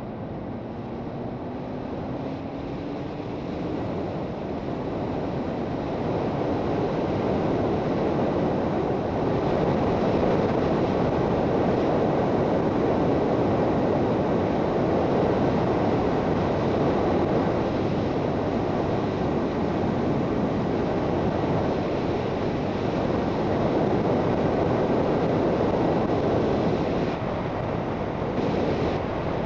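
Suzuki GSX650F motorcycle riding at road speed, heard as a steady rush of wind over the microphone with the engine underneath. A faint engine note rises in the first few seconds, the noise grows louder over the first several seconds, and it eases briefly near the end.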